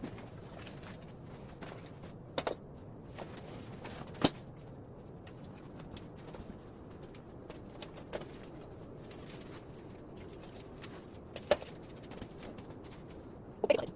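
Scattered knocks and clicks of camping gear and packaging being handled, a few sharp ones standing out (about four seconds in, past eleven seconds, and near the end), over a steady low background hum.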